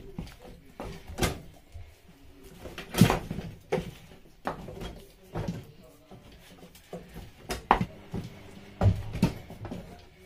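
Wooden spatula stirring and turning thick amala dough in a metal pot, knocking against the pot's sides in a run of irregular thuds, the loudest about three seconds in.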